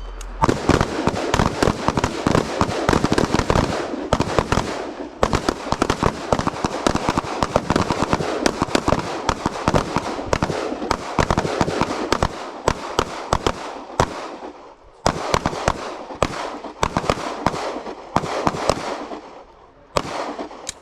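Rapid gunfire from a line of shooters firing rifles and pistols in a rifle-to-pistol transition drill, many overlapping shots a second. The firing thins out with short lulls in the second half.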